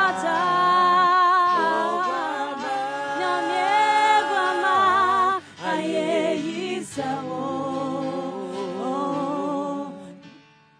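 Worship team of three voices singing a slow gospel worship song a cappella, long held notes with vibrato, dying away in the last second.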